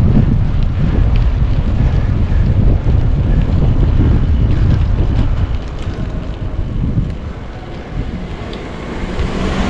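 Wind buffeting the microphone of a camera riding on a moving bicycle: a loud, uneven low rumble that eases off for a few seconds in the second half, then builds again.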